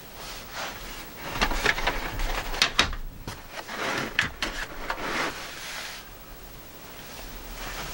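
Handling of a plastic and metal-mesh laptop cooling pad on a table: a run of clicks, knocks and scraping, loudest a little under halfway through, then quieter for the last few seconds.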